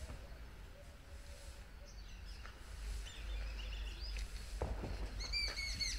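Birds chirping faintly over a low steady outdoor rumble, with a run of sharper, repeated chirps near the end.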